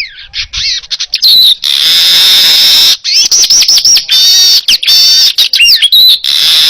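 Manyar (weaver bird) singing loudly in a long, continuous bout: long harsh notes alternate with rapid trills and quick up-and-down whistles, broken by short pauses between phrases.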